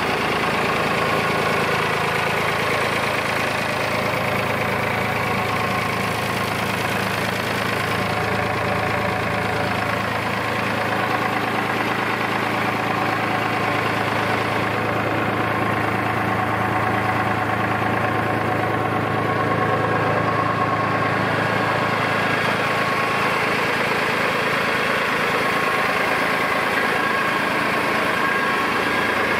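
David Brown 780 Selectamatic tractor's three-cylinder diesel engine idling steadily.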